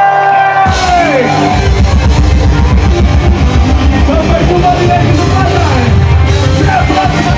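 Live punk rock band playing loudly with distorted guitar and drums: a held note slides down and the full band crashes in about a second in.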